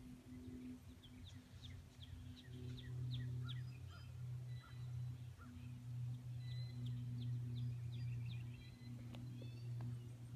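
Small birds chirping in quick runs of short high notes over a steady low hum.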